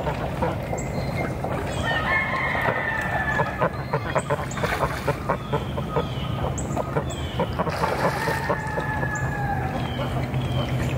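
A rooster crows twice, about two seconds in and again near eight seconds, amid a run of short clucking calls from farm fowl, with brief high chirps above them.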